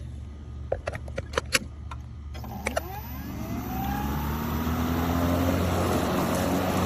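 Lawn mower starting up: a few sharp clicks, then the motor and blade spin up with a rising whine and settle into a steady, louder running sound over a low hum.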